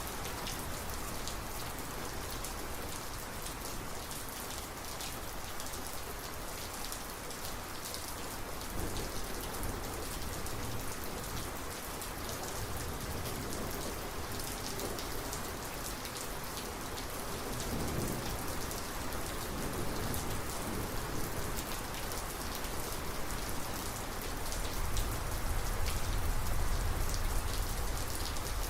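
Heavy thunderstorm rain falling steadily, with a low rumble of thunder swelling near the end.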